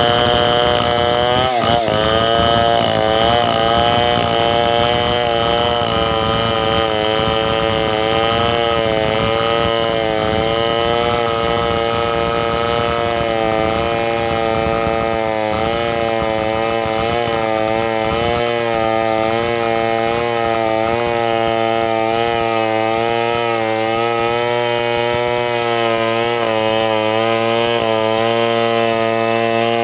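Two-stroke chainsaw engine running steadily at high speed for the whole stretch, its pitch wavering slightly, with a brief dip and recovery about two seconds in.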